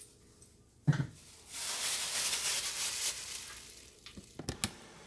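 Hot grease sizzling in the frying pot, with a burst of sizzling that follows a sharp knock about a second in and then fades, and two quick clicks near the end.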